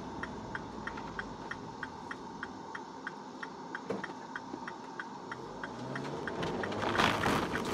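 Car turn signal ticking steadily and evenly over the car's engine and cabin hum, heard from inside the cabin. Road noise swells near the end as the car gets moving.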